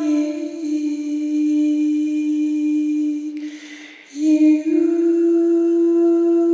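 A solo voice singing long held notes without accompaniment: a note that drops slightly just after the start and is held for about three seconds, an audible breath, then a higher note held steadily.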